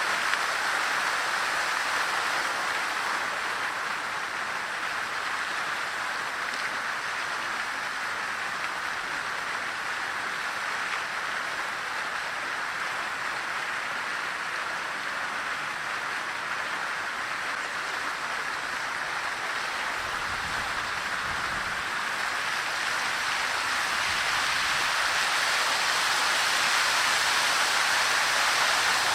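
Fountain water falling and splashing into its basin: a steady rush of water that grows a little louder near the end.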